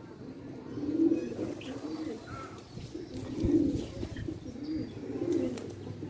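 Domestic pigeons cooing: low, wavering coos repeating every second or two. A faint higher chirp comes about midway.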